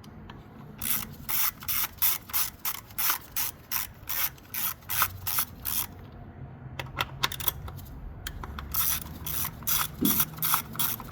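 Hand ratchet with a 10 mm socket clicking through quick back-and-forth strokes, about three a second, while loosening the ignition coil hold-down bolts. The strokes stop briefly about six seconds in, then start again.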